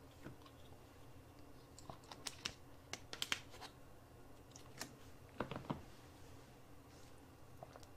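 Plastic water bottle being handled after a drink: scattered crinkles and sharp clicks, the densest about two to four seconds in, then a short cluster of knocks just past five seconds as it is put down.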